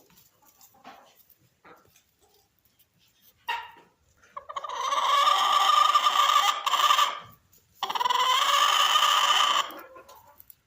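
Azure Blue chicken calling: a short call, then two long, loud, drawn-out calls.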